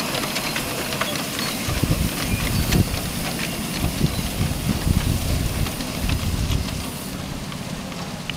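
Live steam 1/8-scale model of a Pennsylvania Railroad Q2 four-cylinder duplex locomotive running past, with a steady steam hiss and scattered sharp clicks. A low, uneven rumble sets in about two seconds in as the engine and tender pass.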